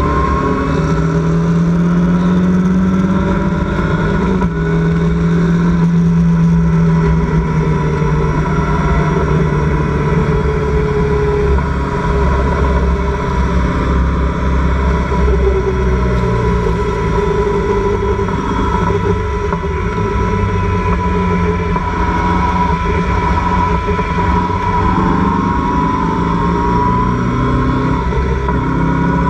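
Locost race car's engine heard onboard at racing speed, running hard under load; its pitch mostly holds and climbs near the start and again near the end. A steady rushing noise runs beneath it.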